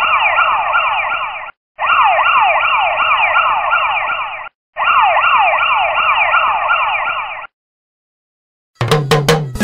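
Siren with rapid falling sweeps, about three a second, in bursts of about three seconds with short breaks, stopping about seven and a half seconds in. Music with sharp drum hits starts near the end.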